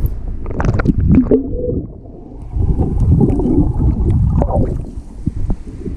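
Pool water splashing as the camera goes under the surface, then muffled underwater rumbling and gurgling of water churned by a swimmer's movements.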